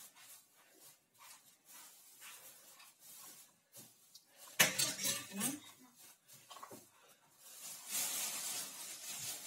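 Dishes being handled on a kitchen counter, with light clicks throughout. About halfway through comes one sharp knock of a dish. Near the end there is a steady rustle as the bowl holding the cake is covered.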